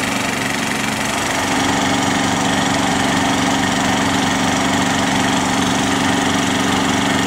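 An engine running steadily, with a low hum that steps up slightly in pitch about a second and a half in and then holds.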